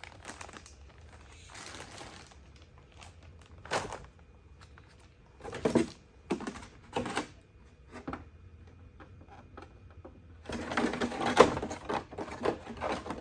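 Plastic RC car parts and packaging being handled and rummaged through: scattered clicks and knocks with rustling, with a louder burst of rustling and clattering about ten and a half seconds in.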